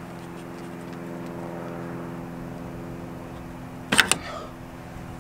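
A steady low hum of several tones, and about four seconds in a sharp double clack as the pry bar slips on the oil cooler housing.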